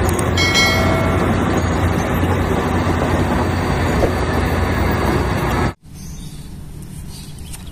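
Large Caterpillar crawler bulldozer's diesel engine running as it pushes a pile, a dense, heavy rumble with a brief high squealing tone about half a second in. It cuts off suddenly near the end, leaving a much quieter background.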